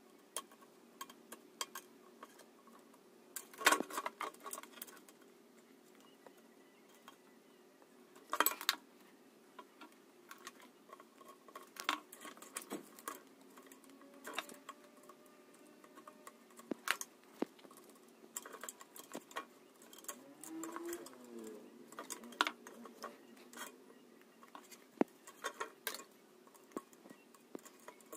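Scattered small clicks and taps of soldering work on an aluminium channel: the soldering iron and LED wires knocking against the metal, with louder knocks about four and eight seconds in.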